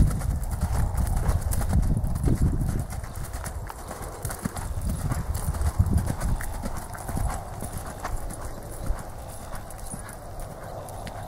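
A horse's hooves beating on arena sand as it lopes under saddle. The hoofbeats grow fainter about three seconds in as the horse moves away.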